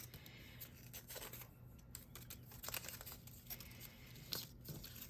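Faint crinkling and small irregular clicks of glue dots being peeled off their backing strip and pressed onto cardstock.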